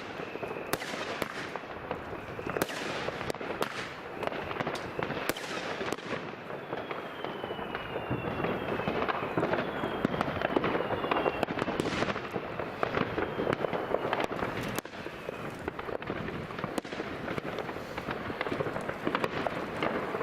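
New Year's Eve fireworks going off: a dense, continuous crackle of firecrackers with many sharp bangs, and several whistles falling in pitch about a third to two-thirds of the way through.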